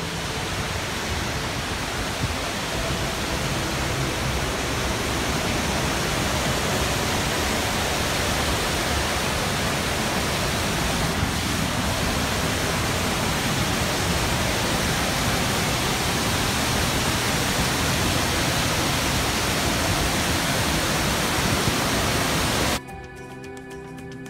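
Steady rush of white water from a large waterfall pouring over rock, a dense unbroken noise. Near the end it cuts off abruptly and soft background music takes over.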